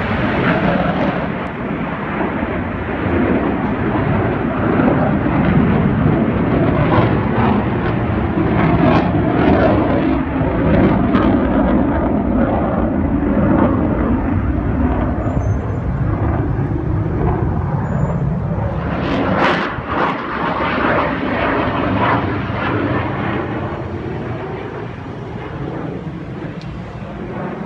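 Loud jet noise from a twin-engine F/A-18 Hornet in flight, a dense roar that holds steady, dips briefly about two-thirds of the way through, and fades over the last few seconds.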